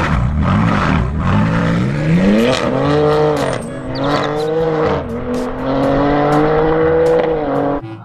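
BMW M3 with an Akrapovič exhaust, its twin-turbo inline-six revving in several quick rises and falls, then accelerating away in a long, fairly steady note that cuts off just before the end.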